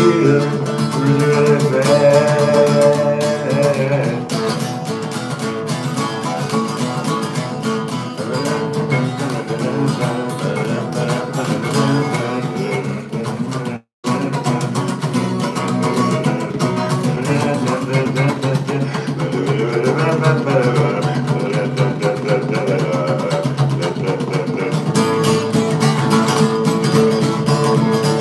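Acoustic guitar strummed steadily and continuously. The sound cuts out completely for an instant about halfway through.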